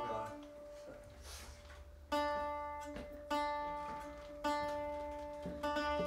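Guitar strings plucked and left to ring, the same notes repeated several times about a second apart, as in tuning or checking the guitar before a slide guitar piece.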